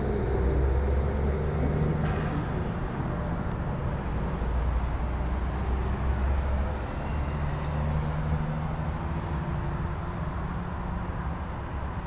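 Steady low rumble of motor vehicle engine noise outdoors, even in level throughout.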